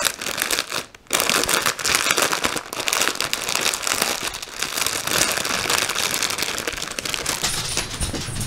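Clear plastic packaging bag crinkling and rustling as it is handled and a bundle of embroidery floss is pulled out of it. There is a short break about a second in, then steady crinkling.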